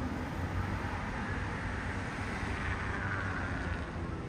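Steady outdoor city background noise with a low traffic rumble.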